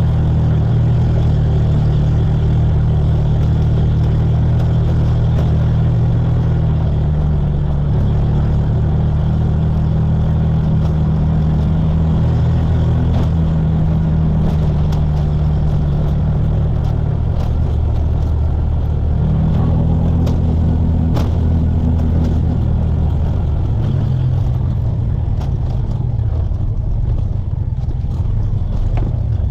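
Bajaj RE auto-rickshaw engine running while driving, a steady low drone whose pitch steps up and down a few times with throttle changes, with road noise.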